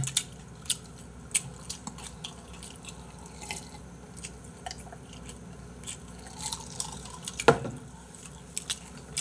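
Eating and drinking at a table: chewing, with scattered small clicks and taps of food boxes and a glass, and one louder knock about seven and a half seconds in.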